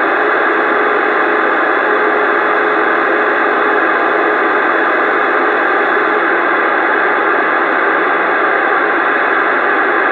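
CB radio receiver hissing with open-squelch static on a quiet channel: a steady rush of noise with a few faint steady tones in it, and no one transmitting.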